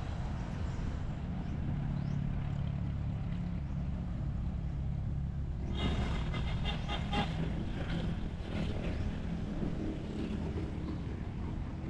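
Steady low rumble of a running vehicle engine. From about six seconds in, a higher, fluttering pitched sound joins it for about three seconds.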